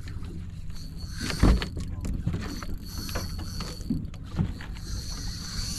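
Boat engine running steadily under a thin high buzz, with one loud knock about a second and a half in.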